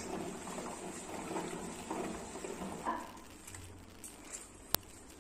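A steel spoon stirring thick flour batter in a stainless-steel bowl for about three seconds, then quieter, with a single sharp click near the end.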